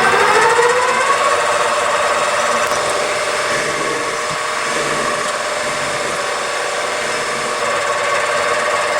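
Metal lathe running under power while turning a shoulder on a bar. Its motor whine rises to speed in the first second, then holds steady.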